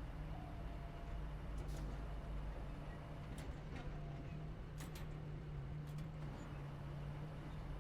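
A machine engine running steadily with a low, even rumble, with a few sharp clicks or knocks over it.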